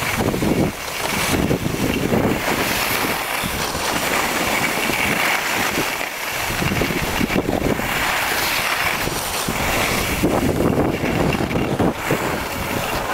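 Skis sliding and scraping over packed snow, mixed with wind rushing over the microphone; the noise swells and eases irregularly.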